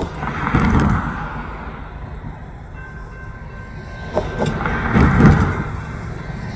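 Freight train rolling slowly in reverse behind an EMD GP40-2 diesel locomotive: a constant low rumble, with wheels knocking over the rail joints in two louder groups, about half a second in and again around four to five seconds in.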